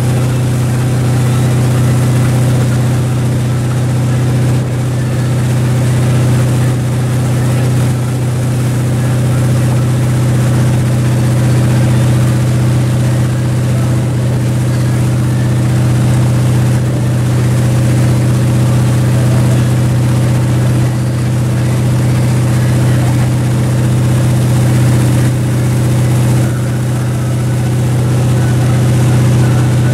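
Motorboat engine running steadily at towing speed, a constant low hum with a rushing wash of water underneath.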